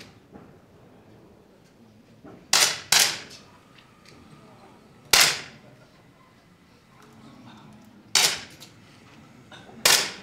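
10 m match air pistols firing from several shooters on the line: five sharp pops, two close together about two and a half seconds in, then single shots at about five seconds, about eight seconds and near the end.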